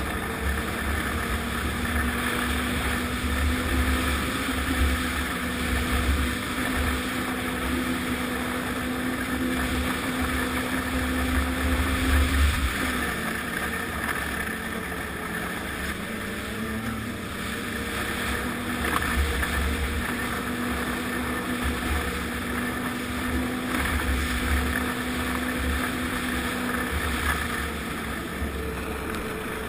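Snowmobile engine running at speed, heard from the rider's seat over wind rush and low buffeting on the microphone. The steady engine note drops and wavers about twelve seconds in, then settles back to a steady note a few seconds later.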